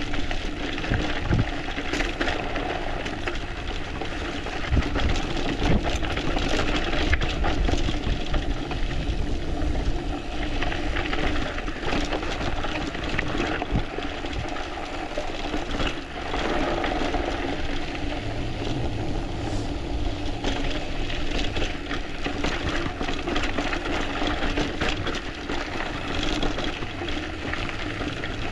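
Mountain bike riding fast downhill on a loose dirt trail: a steady rush of tyre and wind noise, with frequent clicks and knocks as the bike rattles over stones and bumps.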